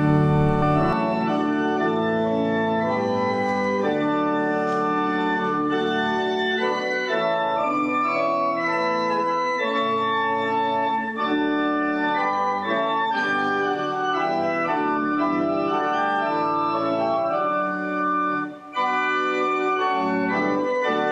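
Church organ playing a hymn in slow, sustained chords, with a brief break near the end before it continues.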